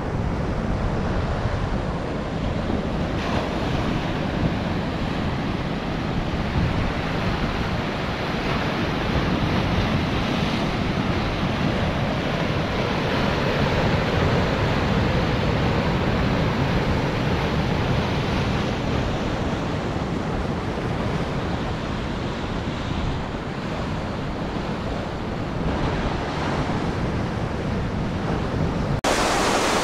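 Surf breaking and washing onto a sandy beach, with wind rumbling on the microphone. Just before the end the sound cuts abruptly to a brighter, even hiss.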